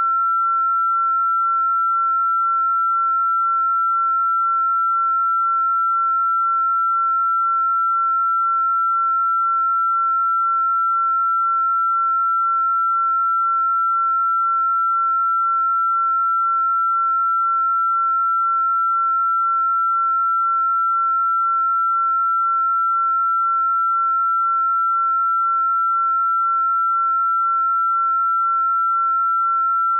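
A single pure electronic sine-wave tone held at one steady high pitch without a break, a synthesised sound-therapy 'healing frequency' tone.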